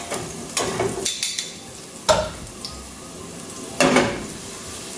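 Sliced garlic sizzling in olive oil in a stainless steel sauté pan, with a utensil stirring and scraping against the pan. Louder scrapes and knocks come in bursts, the loudest near the end as the pan is moved on the burner grate.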